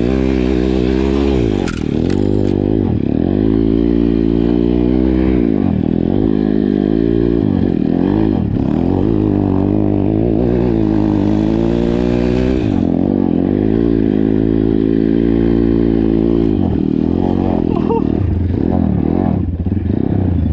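Pit bike's single-cylinder four-stroke engine revving up and dropping back over and over as it is ridden through deep snow, the throttle opened and shut every few seconds.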